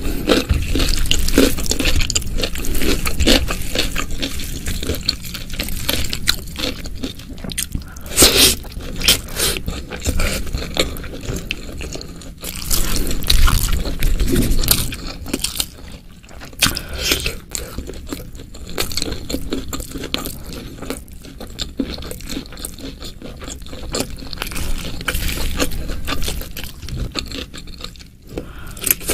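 Close-miked eating: a person chewing and biting food, a dense run of small crackles and clicks, with a loud bite about eight seconds in.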